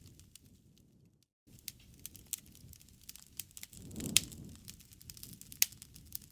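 Wood campfire burning: a low rumble of flames with irregular crackles and a few sharp pops, the loudest two about two-thirds of the way in and near the end. The sound drops out completely for a moment about a second in.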